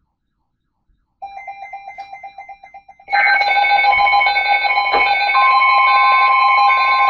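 Electronic alert tones. A rapidly pulsing beep starts about a second in. From about three seconds a loud layered mix of repeating beeps and steady tones takes over, and a further steady tone joins partway through.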